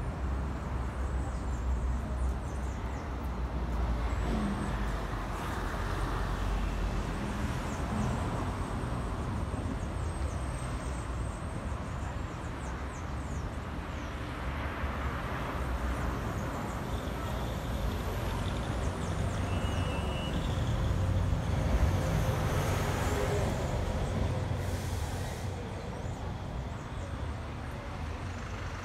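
Street traffic noise: a steady low rumble of passing vehicles, swelling louder for a few seconds about three-quarters of the way through.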